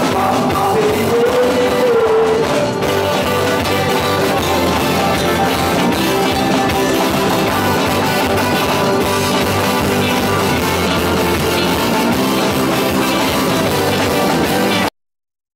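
Loud live chutney music from a band with keyboard, playing through the hall's PA. It cuts off abruptly near the end.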